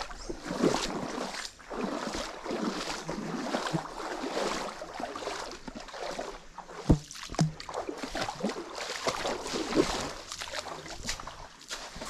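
Feet wading through a shallow stream, the water sloshing and splashing with each stride, with a dull thump about seven seconds in.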